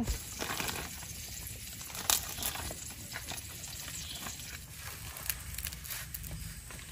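Steady hiss of cooking on a portable gas camp stove, with a few light clicks of utensils on a pot and plate.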